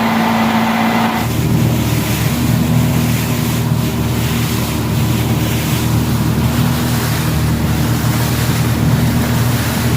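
A small sailboat's engine running under way, a steady low drone with water rushing along the hull and some wind on the microphone. About a second in, a higher steady hum stops and the engine's drone comes up stronger.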